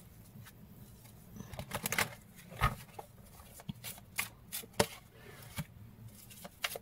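A deck of oracle cards being shuffled and handled in the hands: a string of irregular soft clicks and snaps of cards, sparse at first and busier from about two seconds in.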